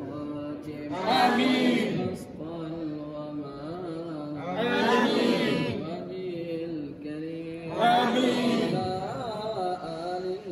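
Melodic chanting of an Islamic supplication (du'a), with long held, wavering notes that swell louder three times.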